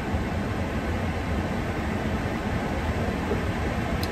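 Car air conditioner blowing at full, a steady rushing noise.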